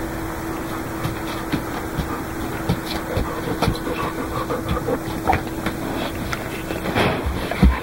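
Light, scattered taps and knocks from a dog and kitten moving about on a wooden floor and a pom-pom cat teaser toy bumping a metal cabinet, over a steady hiss with a faint hum. One louder low thump comes near the end.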